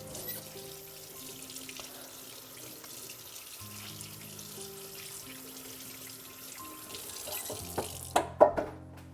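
Water running from a kitchen tap into a sink in a steady rush, with a few sharp knocks near the end before the flow cuts off.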